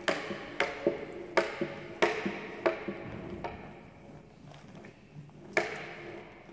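Sharp knocks with a brief ring, about one and a half a second, five in a row that then thin out. One more knock comes near the end.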